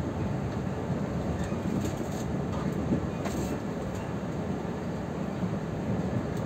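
Taiwan Railways Chu-Kuang express train running along the track, a steady low rumble of the carriage on the rails, with a few faint clicks near the middle.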